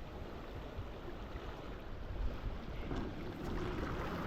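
Wind rumbling on the microphone over the steady wash of the sea.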